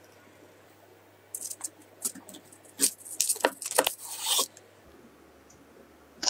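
A knife cutting down through a crisp baked tart crust: scattered crackling crunches from about a second in, growing denser and ending in a longer rasping crunch about four seconds in.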